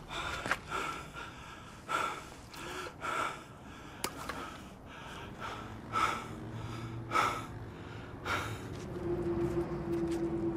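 A man panting hard after sumo footwork drills, drawing in and pushing out heavy, gasping breaths that come quickly at first and slow to about one a second. A low held tone comes in about nine seconds in.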